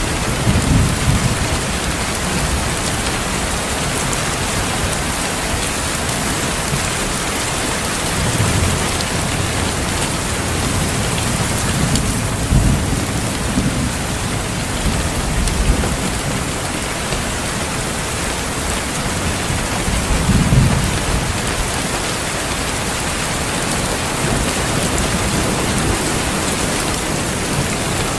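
Steady heavy rain falling, with low thunder rumbling in the distance several times: near the start, at about a third of the way in, for a longer stretch past the middle, and once more about two-thirds through.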